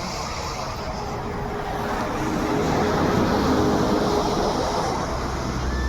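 A motor vehicle passing by: its engine hum and rushing tyre noise build to a peak about three seconds in, then fade.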